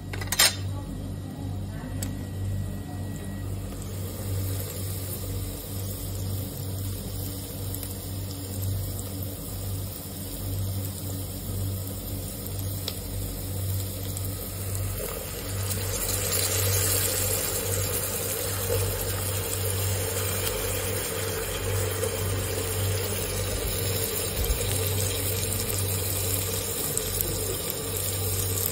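Steady rush of running water that swells about halfway through, over a constant low hum. A single sharp clink, a spoon against the metal grater, right at the start.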